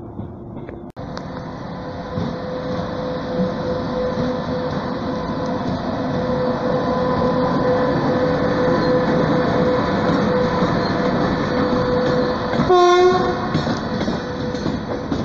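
Pesa Gama electric locomotive hauling Pesa Sundeck double-deck coaches passing close by at speed: a steady, loud rumble of wheels and running gear that builds up. A short horn blast sounds near the end.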